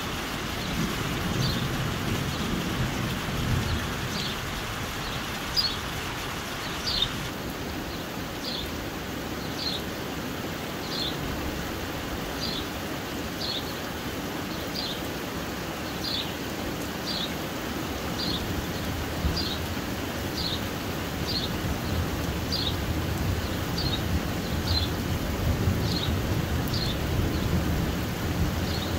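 Steady heavy rain falling on a garden, with low rumbling of thunder near the start and again near the end. Over it, a short high falling chirp repeats about once a second.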